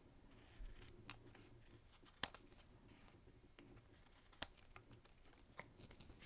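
Scissors snipping the ends off strips of paper: a few separate, quiet snips, the loudest about two seconds in and just after four seconds.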